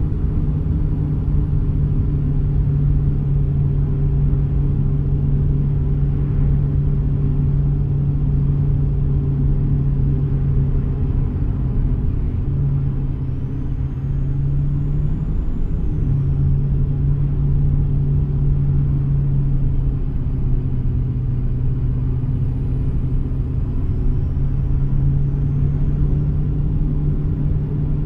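Car driving at a steady speed: a constant low engine and road-noise drone, as heard from inside the car.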